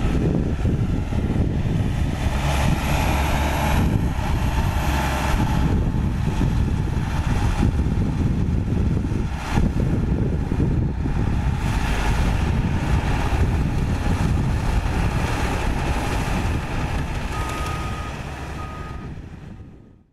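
Caterpillar D5K2 XL crawler dozer's diesel engine running under load as it pushes dirt, fading out near the end. Two beeps of a reversing alarm sound shortly before it fades.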